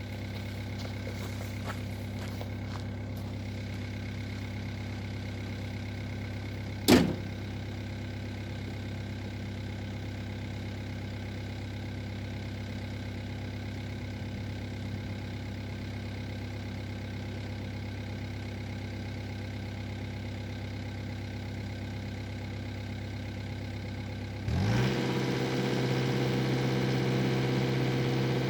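Excavator diesel engine idling steadily, with one sharp knock about seven seconds in. Near the end the engine speeds up and holds at a higher, louder speed.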